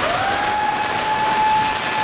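A siren starts at the start, rising quickly in pitch and then holding one steady tone. Behind it is a steady hiss of rain.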